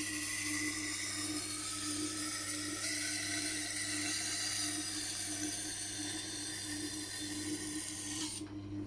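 Steel cleaver edge being ground on the Tormek wet grinder's SG250 aluminum oxide stone, dressed coarse: a steady hissing grind over the low hum of the grinder's motor, cutting off near the end as the blade is lifted from the stone.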